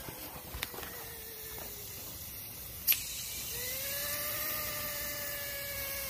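Refrigerant hissing out of a worn-through air-conditioning hose on a running Yanmar YT347 tractor; the line has rubbed against something and worn down. A sharp click comes about three seconds in, and soon after a steady whine with overtones joins the hiss.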